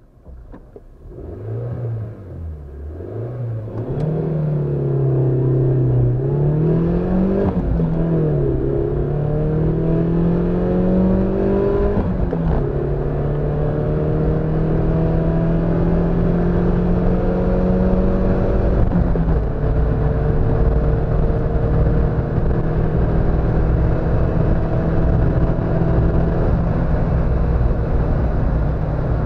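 Suzuki Wagon R+'s 1.3-litre VVT petrol engine, heard from inside the cabin, accelerating at full throttle through the gears of its manual gearbox. The engine note rises in pitch and drops back at each upshift, about every four seconds at first, then holds high and strained in the upper gears.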